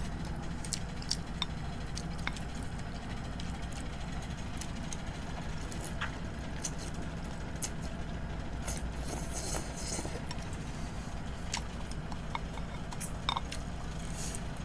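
Eating sounds: chopsticks clicking against ceramic bowls now and then, and a slurp of rice noodles about nine seconds in, over a steady low hum.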